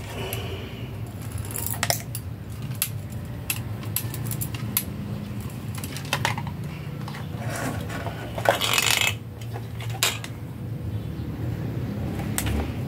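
Clinks, clicks and clatter of tools and small metal parts being handled and rummaged through, with a louder scraping rustle lasting under a second about two-thirds of the way through. A steady low hum runs underneath.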